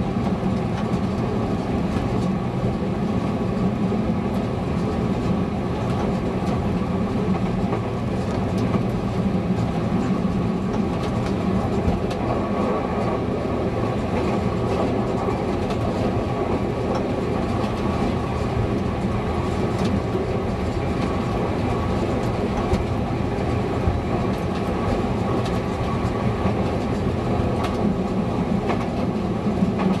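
ČD class 854 diesel railcar running along the line, heard from the driver's cab: a steady diesel engine drone with occasional faint clicks of the wheels over the rails.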